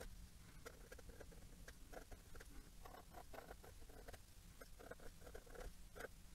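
Pilot Falcon fountain pen's soft fine 14k gold nib scratching faintly across lined notebook paper in short, irregular strokes as cursive is written.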